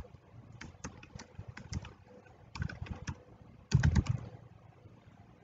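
Computer keyboard being typed on: irregular, fairly sparse keystroke clicks, with a heavier thump a little under four seconds in.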